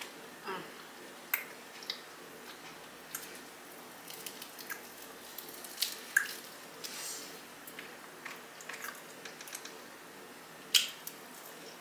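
Close-up eating sounds of seasoned chicken wings: scattered wet smacks and clicks of biting and chewing, the loudest near the end.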